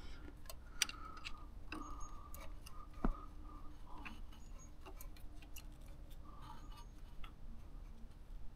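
Faint, irregular light clicks of a screwdriver working the adjustment screw on a Trabant 601's carburettor, one a little louder about three seconds in. Under them is a low, steady hum from the idling two-stroke, two-cylinder engine while its idle mixture is being set.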